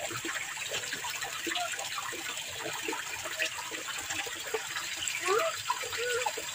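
Running water in a rice-field irrigation channel, a steady rushing hiss, with faint voices about five seconds in.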